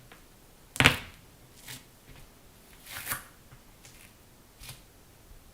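Four short, separate cracking pops over about four seconds, the first one, about a second in, the loudest, from a person's body being cracked.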